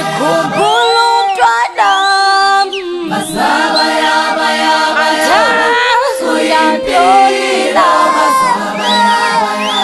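Unaccompanied choir singing in harmony, several voices holding chords that shift together, with a high voice sliding up and down above them in the last few seconds.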